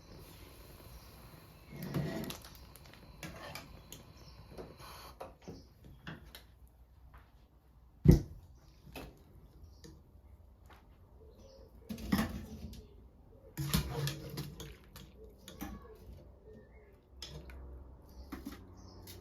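Scattered clicks, knocks and clatter of objects being handled, with one sharp knock about eight seconds in and brief bursts of rustling clatter near two, twelve and fourteen seconds.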